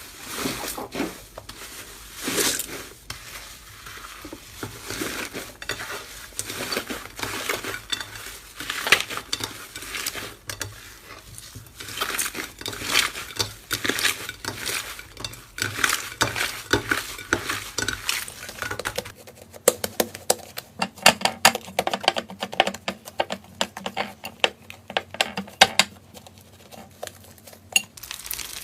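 Slime being worked, with many short sticky clicks and pops. About two-thirds of the way in the clicking becomes denser and sharper.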